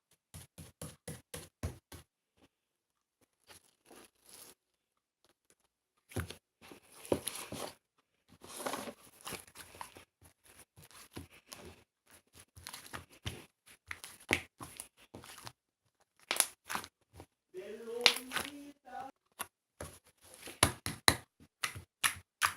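Slime being pressed and stretched by hand, making clusters of sharp crackling pops and clicks with short quiet gaps. A brief wavering pitched sound comes in about three quarters of the way through.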